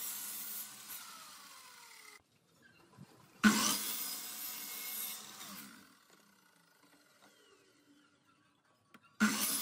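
Ozito sliding compound mitre saw cutting small wooden strips. The saw is winding down with a falling pitch at the start. About three and a half seconds in it bites into the wood suddenly and winds down again over a couple of seconds. After a quiet gap it starts another cut just before the end.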